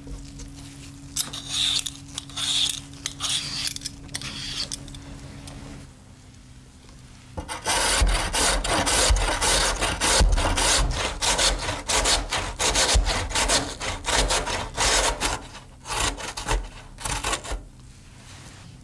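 A raw potato being peeled in a few short scraping strokes. After a short pause it is grated on a stainless steel box grater in quick, rhythmic rasping strokes for about ten seconds, the louder part.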